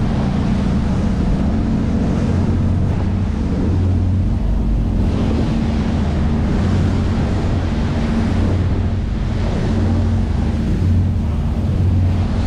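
Motorboat under way: a steady engine hum under wind buffeting the microphone and the rush of water.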